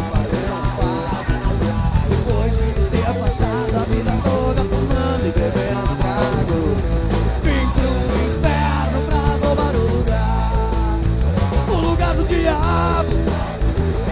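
Live rock band playing: electric guitars, electric bass and drum kit, with lead lines that bend in pitch over a steady beat.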